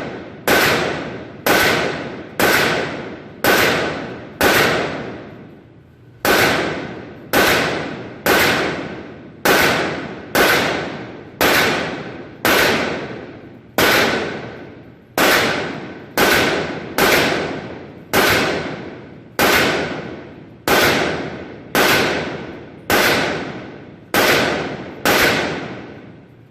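FN PS90 5.7x28mm carbine firing a long string of semi-automatic shots, about one every half second, with one brief pause about five seconds in; each shot trails off in echo.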